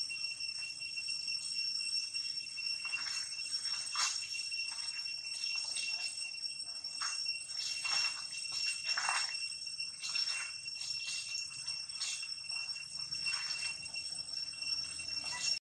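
Short scattered rustles and scuffs in dry leaf litter as monkeys move over it, over a steady high-pitched ringing tone with a fainter higher overtone.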